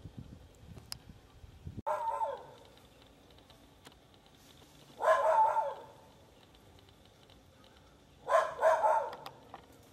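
Bark-like animal calls in three short bursts, about two seconds in, about five seconds in, and a double call near the end.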